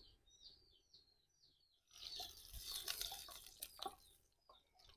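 A small bird chirps in a quick run of short, high, falling calls. About two seconds in, a soft crackling hiss with scattered clicks starts and lasts roughly two seconds: lard melting in a hot clay pot over a wood fire as a wooden spoon works it.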